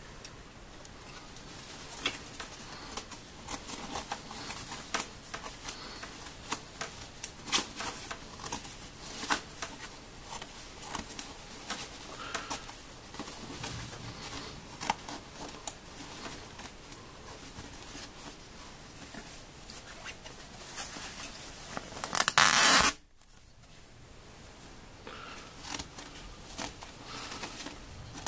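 Scissors snipping slowly through the quilted nylon shell and padding of a puffer coat, with crinkly rustling of the nylon between cuts. Past the middle, a much louder scratchy burst lasting about a second, which stops abruptly.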